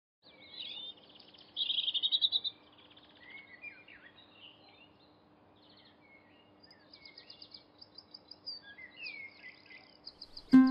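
Songbirds chirping and trilling, many short overlapping calls with a loud rapid trill about two seconds in, over a faint steady hum. Music strikes up with a sudden chord near the end.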